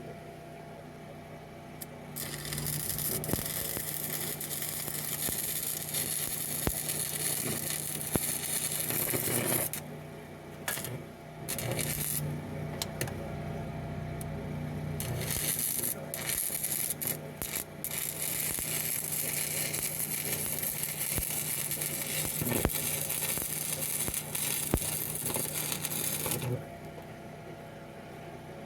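Stick-welding arc crackling and hissing as 6010/6011 rods are run into a cracked weld. It comes in long runs broken by short pauses between rods, and stops a couple of seconds before the end. A steady low hum runs underneath.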